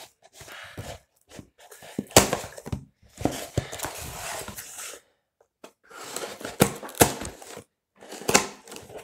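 Cardboard parcel being cut and torn open with a small blade: scratchy cutting and tearing of tape and cardboard in several stretches, with short pauses and a few sharp knocks.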